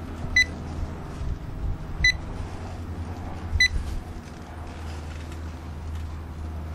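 Digital clamp meter beeping: three short, high single beeps about a second and a half apart, over a low steady hum.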